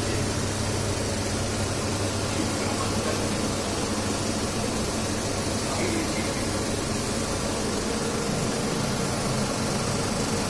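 Steady mechanical hum with a constant hiss, like a running fan or motor, without any distinct events.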